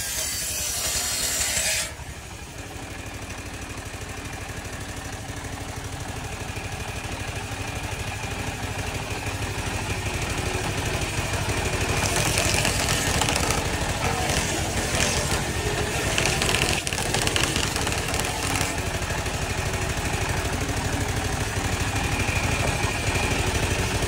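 Engine-driven circular saw bench running, with a steady fast engine chug under a thin blade whine. Loud sawing in the first two seconds stops abruptly, and about halfway through a stretch of hissing, scraping cutting noise comes as the log is pushed against the blade.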